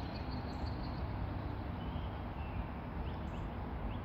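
Steady outdoor background noise with a few faint, brief bird chirps.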